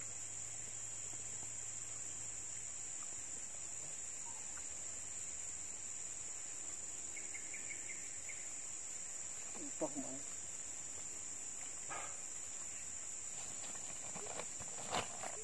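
Steady, high-pitched drone of insects, with a few faint brief knocks and a short voice-like sound about ten seconds in.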